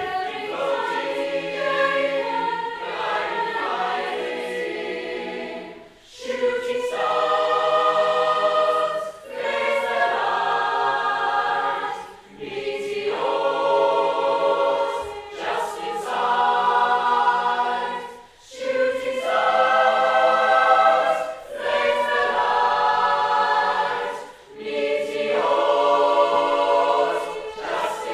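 A group of voices singing held chords in harmony, in phrases a few seconds long with short breaks between them.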